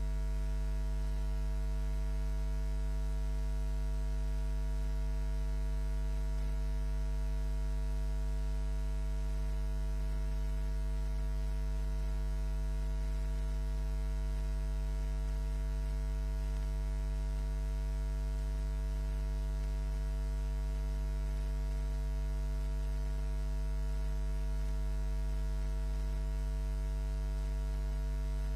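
Steady low electrical mains hum with a faint buzz above it, unchanging, with no other sound.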